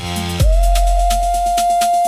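Bass-heavy electronic music. About half a second in, the punchy kick-drum beat drops into one long, deep sub-bass note that slowly fades, under a held higher synth tone and quick hi-hat-like ticks.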